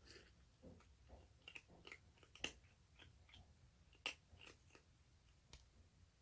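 Baby orange tabby kitten chewing its food: faint, irregular crisp crunches and clicks, the two loudest about two and a half and four seconds in.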